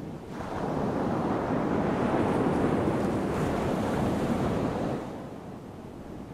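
Ocean surf: a wave surges in, swelling about half a second in and washing away after about five seconds.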